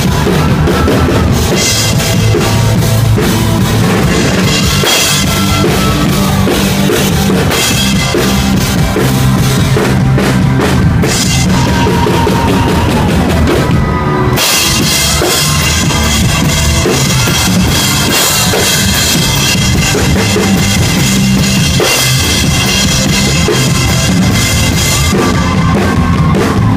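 Live rock band playing loud on stage, heard from beside the drum kit so the drums dominate, with kick, snare and cymbals over guitar, keyboard and bass. The cymbal wash drops away briefly a little past the middle and then crashes back in.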